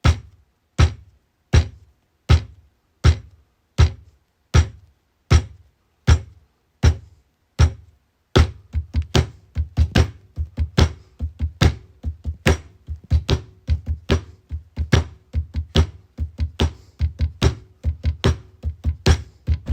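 Music built on a slow, steady drum beat, one hit about every three quarters of a second. About eight seconds in, a busier drum pattern joins with a faint held tone underneath.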